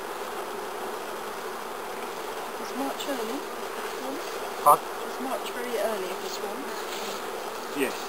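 Honeybees buzzing in a steady hum around an open apiary hive, with single bees passing close and their pitch wavering up and down. A brief, much louder blip sounds about halfway through.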